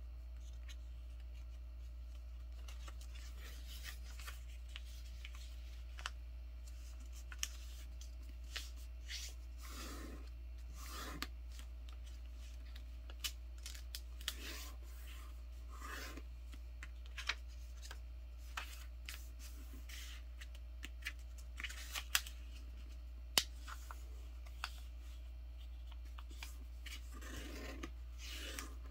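A sheet of printer paper being folded and creased by hand: scattered soft rustles and short, sharp ticks as fingers press and slide along the folds. A steady low hum sits underneath.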